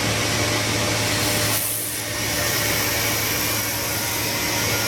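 Ring bending and laser welding machine running: a steady whir over a constant low hum from its hydraulic oil cylinder drive and water chiller, dipping briefly about two seconds in.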